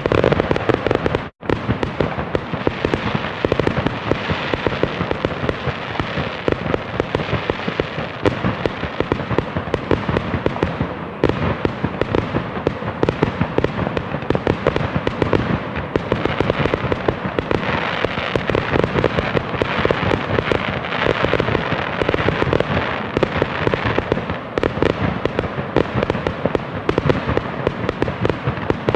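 A continuous barrage of fireworks: many overlapping bangs and crackles with no pause, briefly cutting out for an instant about a second and a half in.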